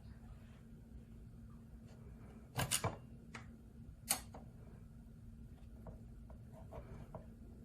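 Sharp clicks and knocks of tools or parts being handled: a quick cluster of three about two and a half seconds in, a single sharp one about four seconds in, then lighter ticks. A steady low hum runs underneath.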